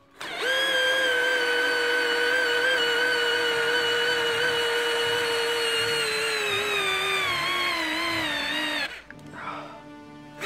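Counterfeit Bosch GSR 18-2-LI Plus cordless drill driver driving a long wood screw into timber. The motor whines steadily, then its pitch falls over the last few seconds as it slows under the growing load of the screw sinking in, and it stops about nine seconds in.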